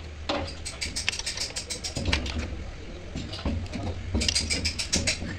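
Spanners clicking and rattling on a nut and bolt as it is tightened, a quick run of sharp metallic clicks about four seconds in.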